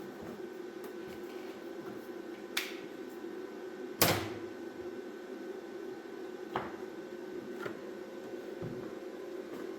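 A steady workshop hum with four short sharp knocks, the loudest about four seconds in.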